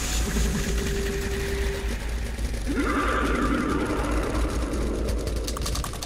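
Experimental soundtrack texture: a steady low hum under a held tone, then pitched sounds gliding upward, and a fast run of clicks near the end. The clicks are a rapid mechanical clatter like typewriter keys.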